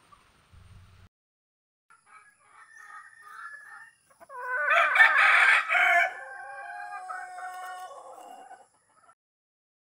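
Native rooster crowing, loudest about halfway through and then trailing off in a long held tail, with softer calls just before it.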